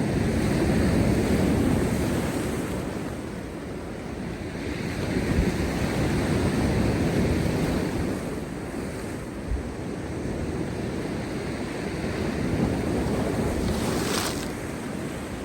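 Heavy storm surf breaking on rocks, coming in as three rushing surges in a row, with a short sharp hiss of spray near the end.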